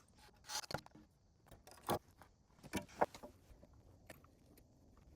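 A few sharp knocks and clacks, irregularly spaced, two of them close together about three seconds in, from hand work on wood and tools.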